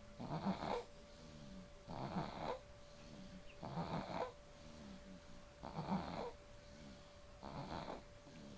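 Six-month-old baby snoring in his sleep: a noisy snoring breath about every two seconds, five in all, with softer breathing between them.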